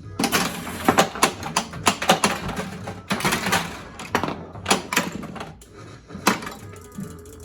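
Williams Big Guns pinball machine in play: a rapid clatter of flippers, solenoids and the ball striking targets, dense for about five seconds, then one more sharp hit near the end.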